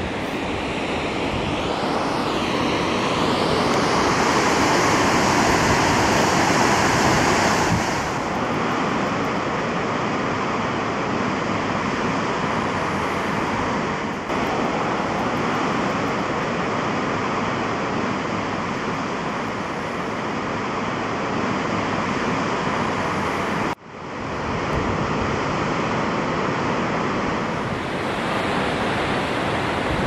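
Steady, loud rush of Gibbon Falls, an 84-foot waterfall on the Gibbon River. The sound briefly drops out about three quarters of the way through.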